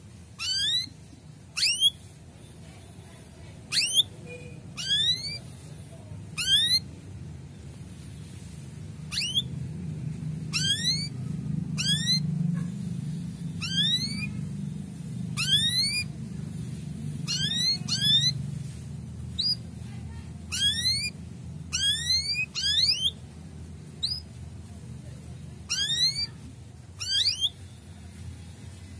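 Male canary giving about twenty short 'cuit' calls, each a quick high whistle sweeping steeply downward, spaced irregularly about a second apart. A low rumble swells underneath in the middle.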